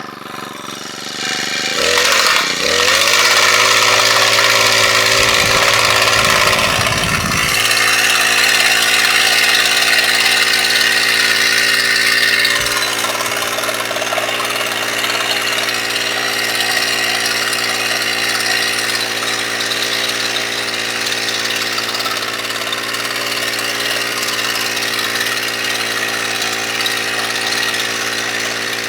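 An engine starts about two seconds in, rises in pitch and settles into a steady, even run.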